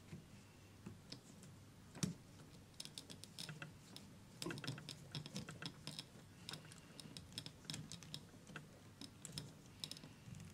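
Small screwdriver driving a tiny screw into a plastic part of a model truck chassis: a run of irregular light clicks and scrapes, the sharpest about two seconds in.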